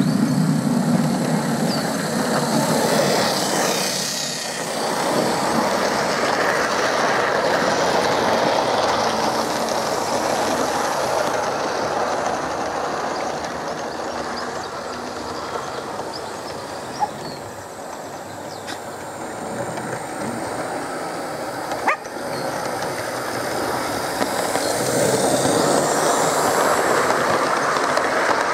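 Model railway trains running along the track: a steady rolling rumble from the wheels on the rails that swells and fades as the trains pass, with a couple of sharp clicks over rail joints.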